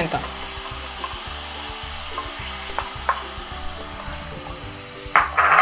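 Diced red bell pepper and onion sizzling in a hot oiled pan as they are stirred with a wooden spoon, with a few light spoon taps and a louder burst of stirring near the end.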